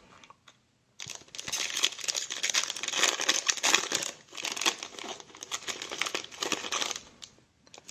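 Foil wrapper of a trading card pack crinkling and tearing as it is ripped open and the stack of cards pulled out. The crackling starts about a second in and dies away about a second before the end.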